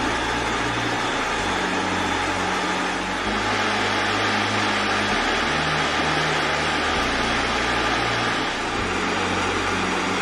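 Jet engine noise from a Boeing 777's GE90 turbofans as the airliner taxies: a steady, even roar with no rise or fall.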